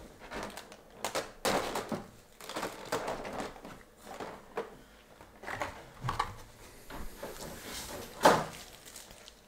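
Clear plastic packaging being handled: a bagged figure being pulled out of its clear plastic insert, giving irregular crinkles, rustles and light knocks of stiff plastic, the loudest a sharp crackle near the end.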